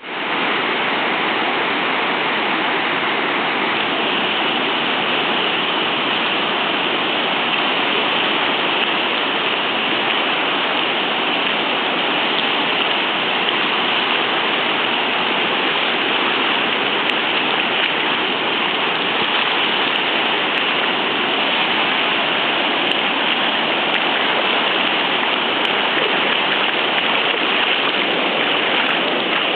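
Deerfield River in flood, its swollen water rushing in a steady, unbroken hiss.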